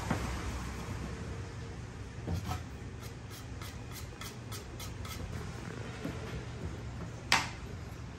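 A metal bench scraper tapping on a stainless steel worktable as it chops slices off a log of tart pastry, about four light ticks a second for a couple of seconds. Near the end, one sharp metallic clack on the steel table.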